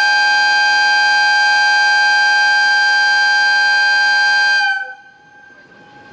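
Air whistle of a preserved JNR train, held in one long steady blast that cuts off about four and a half seconds in and leaves a short fading ring.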